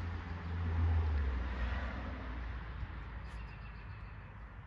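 Domestic cat meowing behind a glass door, muffled by the glass, over a low rumbling rush that peaks about a second in and then fades.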